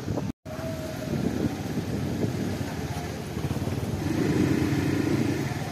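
Busy outdoor crowd bustle with wind rumble on the microphone, cutting out for a moment just after the start. A motor scooter's small engine runs past about four seconds in.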